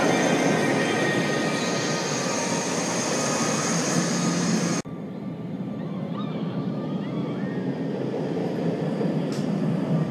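Flying roller coaster train running along its steel track: a steady rushing rumble that cuts off suddenly about halfway through. A quieter coaster rumble follows, with a few faint chirps.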